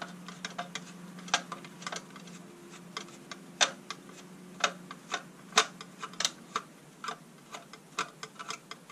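Irregular light clicks and taps of a screwdriver, screws and the plastic casing of a lantern torch being handled as it is taken apart, with a faint low hum in the first half.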